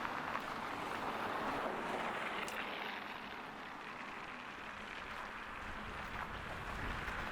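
Outdoor town street ambience: a steady rushing noise that eases slightly in the middle and swells again near the end.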